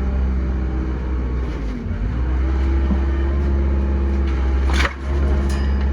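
Heavy construction machine's engine running steadily; its pitch sags and recovers about two seconds in, and a single sharp clank sounds near the end.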